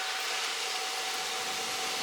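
Electric arc welding: the welding arc gives a steady, even hiss, with a faint steady whine underneath.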